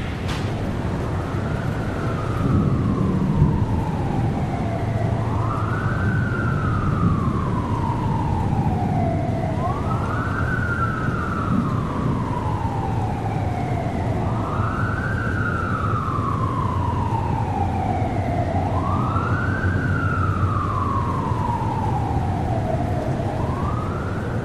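A siren wailing in slow cycles, each a quick rise in pitch and then a longer slide back down, repeating about every four seconds over a steady low rumble.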